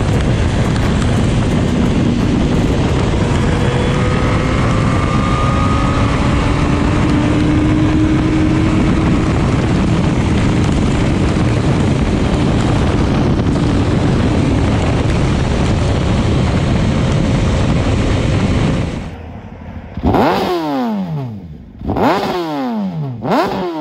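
Honda CBR929RR's inline-four engine running at highway cruising speed under a steady, loud rush of wind noise. After a sudden cut near the end, the bike is revved three times at a standstill, each rev climbing sharply and falling away.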